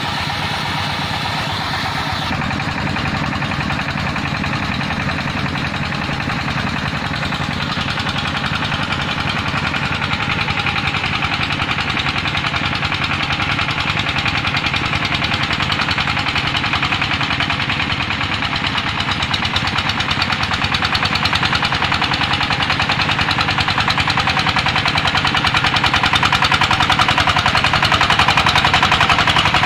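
Single-cylinder diesel engine of a công nông farm truck running steadily with a fast, even chugging, growing gradually louder.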